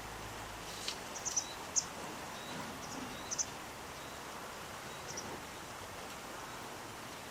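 Steady outdoor background with a few faint, short, very high chirps from small birds, in three brief clusters.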